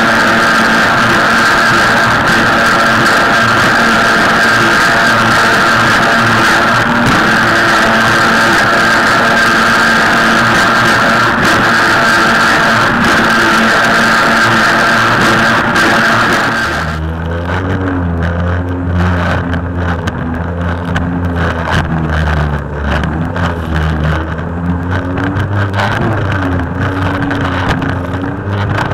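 Rock music with guitar for about the first seventeen seconds, then it cuts off suddenly. The jet ski's engine follows, running over wind and water noise, its pitch rising and falling as the throttle changes.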